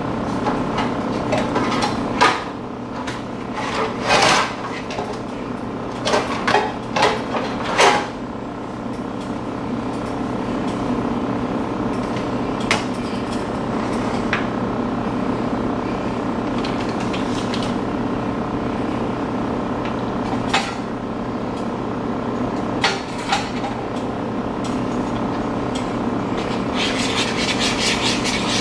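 Dishes and kitchen utensils clattering and knocking, with a cluster of sharp knocks in the first eight seconds and a few single ones later, over a steady background hum. Near the end comes a quick run of clicking as a utensil stirs in a bowl.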